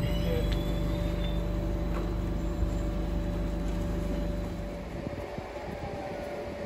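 Electric passenger train humming close by, a steady drone with a low rumble. About five seconds in it drops away to quieter, noisier station background.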